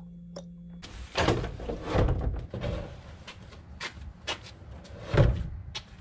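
A series of irregular knocks and clunks over a background hiss, the loudest about five seconds in, after a low hum that stops under a second in.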